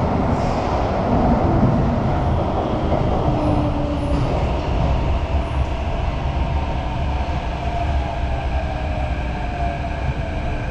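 Singapore MRT train running, heard from inside the car: a steady low rumble of wheels on the rails under a thin motor whine that slowly falls in pitch during the second half.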